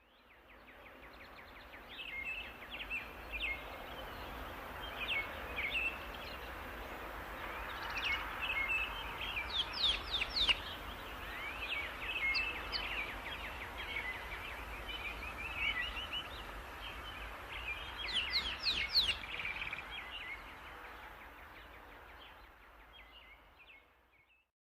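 Birds calling: many short high chirps over a steady background hiss. The sound fades in and out, and there are two flurries of quick high sweeping calls, about 10 s and 19 s in.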